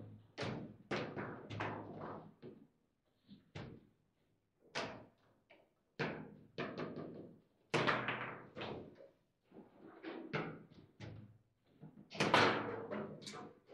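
Table football in play: irregular sharp knocks and clacks as the plastic players strike the ball and the ball hits the table walls, with the rods rattling, in bursts with short pauses.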